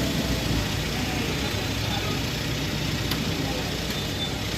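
Street traffic: vehicle engines running steadily, with faint voices in the background.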